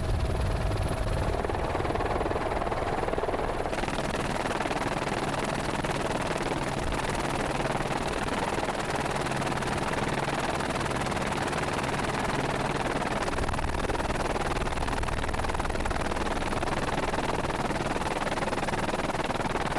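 Steady drone of a helicopter's rotor and engine with rushing wind. The hiss brightens about four seconds in.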